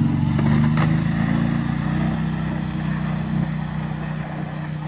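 Quad bike (ATV) engine running at a steady pitch, loud at first and gradually fading.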